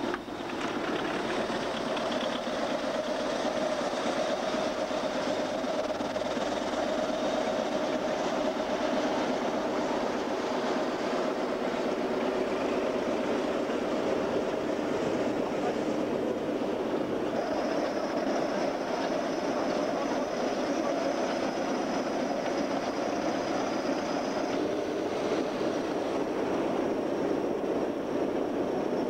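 Diesel engines of crawler bulldozers running steadily. A thin high whine joins for several seconds past the middle.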